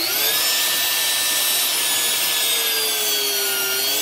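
1 hp Bosch trim router, used as a CNC spindle, running unloaded with a steady high whine. Its pitch rises at the start, dips slightly near the end and climbs back as its speed dial is turned toward maximum speed.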